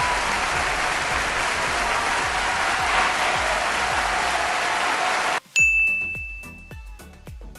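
Crowd applause, a steady clapping that cuts off abruptly about five seconds in. It is followed by a single bell-like ding that rings and fades away over about two seconds.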